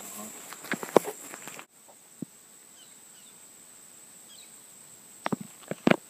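Insects droning at a steady high pitch, which cuts off about one and a half seconds in. After that, faint outdoor ambience with a few soft bird chirps and scattered short scuffs and clicks, loudest near the end.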